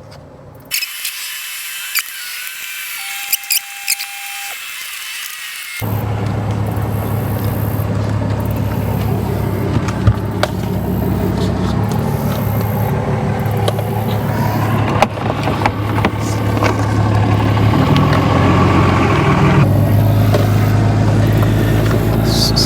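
Scattered clicks and handling noises as the tire repair kit is packed away. From about six seconds in, a steady low hum of the running vehicle takes over and grows slightly louder.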